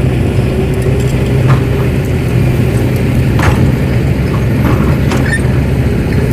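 Radio-controlled model excavator running with a steady low hum, with a few faint clicks about one and a half, three and a half and five seconds in.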